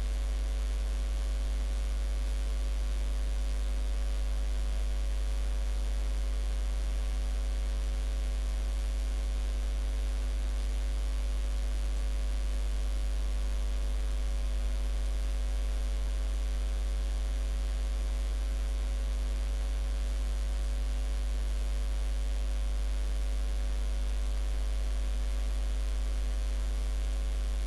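Steady electrical mains hum, a constant low hum with a ladder of overtones and a faint hiss, unchanging throughout.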